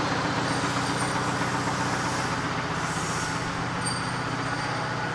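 Steady drone of running machinery in a metal-machining workshop: a low hum with a few steady tones under an even hiss.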